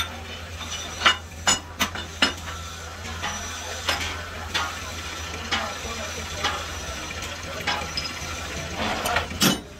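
Old belt-driven workshop lathe with a steady low hum, and scattered metallic clicks and knocks.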